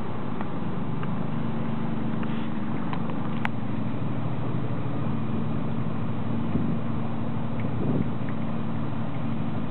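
Lake motor ship MS Stockhorn's single 265 kW engine running steadily underway, a low hum over a steady rush of water and wind along the hull. One sharp click about three and a half seconds in.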